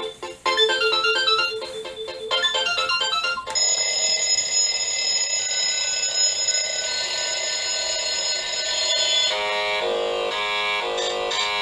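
Seiko RAIDEN NR443K quartz alarm clock playing its loud synthesized electronic alarm sounds, one pattern after another. First a beeped melody of stepping notes, then about three and a half seconds in a steady shrill sound of several held tones, and about nine seconds in a pulsing buzzer at roughly two pulses a second.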